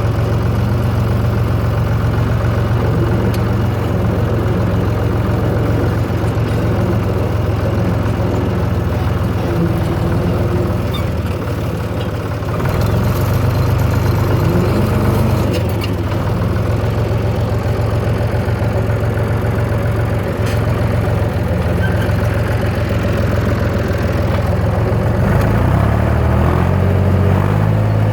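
Zetor 3320 tractor's three-cylinder diesel engine running steadily under load as it spears and lifts a round hay bale, its pitch shifting near the end.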